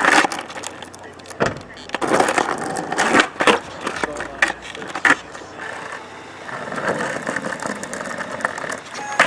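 Skateboard rolling, with a few sharp clacks of the board spread through the sound.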